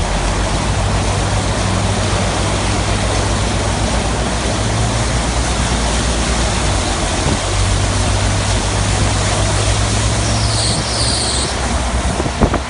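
Steady rush of heavy rain and running storm water, with a low steady hum underneath.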